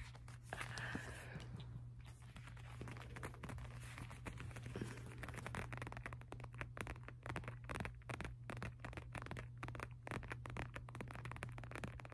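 Fingers rubbing, scratching and flexing a black leather wallet close to the microphone: a dense, irregular run of small scratches and creaks, over a steady low hum.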